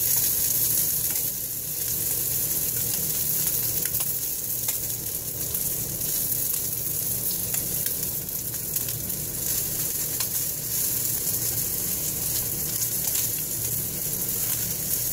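Bacon wrapped around a grilled cheese sandwich sizzling in a hot skillet, a steady frying hiss with scattered small pops and crackles.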